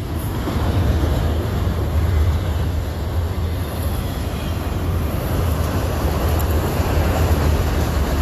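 Train rolling past, a steady loud rumble of wheels on rail with no let-up.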